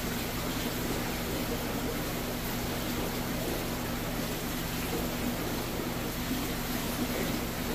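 Steady hum and water hiss of aquarium pumps and filters running, with no change in level.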